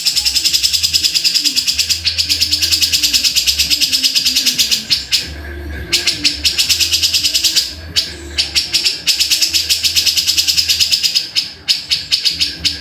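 Grey-cheeked bulbul (cucak jenggot) giving a rapid, high-pitched chattering trill in long runs broken by short pauses.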